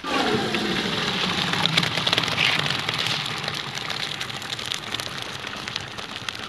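Pot of boiled rice tipped into a metal basin: the starchy cooking water gushes and splashes out, starting suddenly and easing off after about three seconds as the rice slides out after it.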